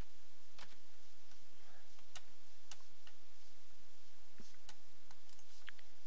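Sparse single clicks from a computer mouse and keyboard, about eight in six seconds and irregularly spaced, over a steady low hum.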